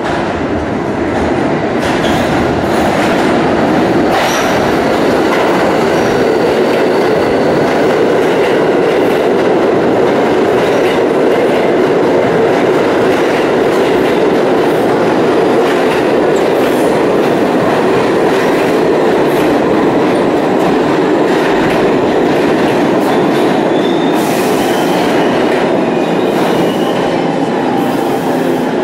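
New York City subway train coming into the station and running along the platform: a loud, steady rumble of steel wheels on rail that builds over the first few seconds. Repeated clacks of wheels over rail joints and a faint high wheel squeal run through it.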